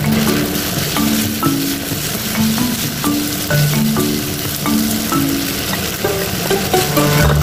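Rice noodles sizzling as they are stir-fried in a frying pan and stirred with a wooden spoon. A melody of short, light notes plays over the sizzling as background music.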